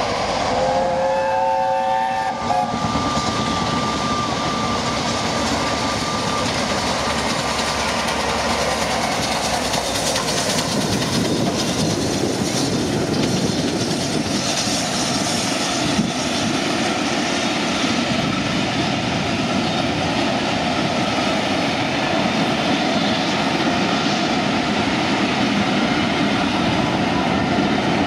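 BR Standard Class 7 'Britannia' Pacific steam locomotive and its coaches passing at speed on the main line, with wheels clattering over the rail joints and a loud rush that builds as the engine draws level. A short whistle or horn chord sounds at the start.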